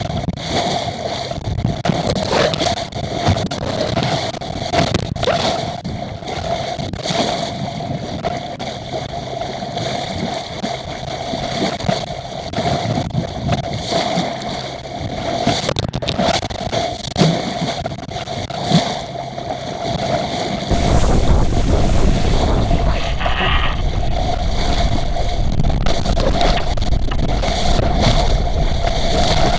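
Small sailing yacht under reefed sail in a strong wind: water rushes and gurgles along the hull, with a steady hum and a couple of sharp knocks. About two-thirds of the way through, wind buffeting on the microphone gets much louder.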